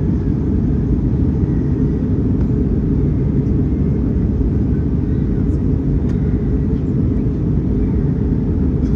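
Steady low rumble of an Airbus A319-100 in flight, its engines and airflow, with no change in level throughout.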